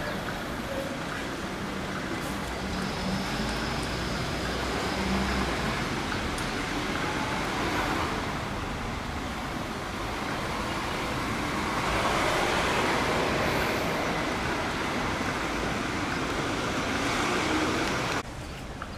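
City street traffic: cars and buses driving past with a steady rumble of engines and tyres, swelling for a few seconds past the middle and dropping suddenly near the end.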